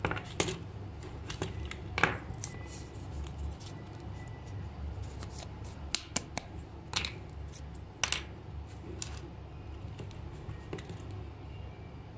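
Irregular sharp clicks and snaps of hard plastic parts as an electric toy praying mantis is pried apart and handled, the loudest about two, seven and eight seconds in.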